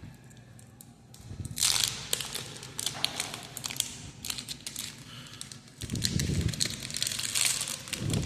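Foil booster pack wrapper crinkling and rustling as it is handled and torn open, with small clicks and taps of trading cards being handled. The rustling comes in irregular bursts and grows louder from about six seconds in.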